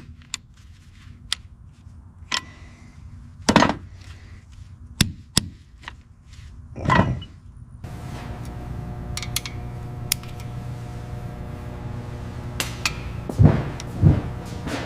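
Tool work: a series of separate knocks and clanks, then a steady mechanical hum that starts about eight seconds in, with more knocks over it.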